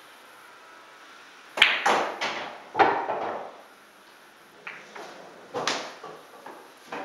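Pool balls clacking during play: a cue strike and a quick run of ball-on-ball clicks and knocks about a second and a half in, then a second, smaller run of clicks about five seconds in.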